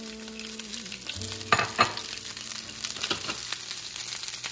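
Cold cooked rice sizzling in avocado oil in a hot frying pan. Two sharp knocks stand out about a second and a half in, with a weaker one later.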